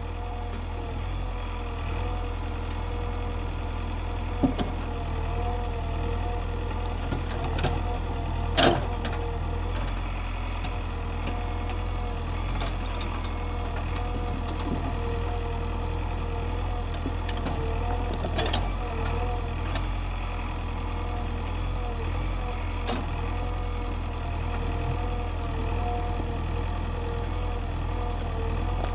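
JCB backhoe loader's diesel engine running steadily under a wavering whine as the backhoe arm works. A few sharp knocks stand out, the loudest about eight and a half seconds in and another near eighteen seconds.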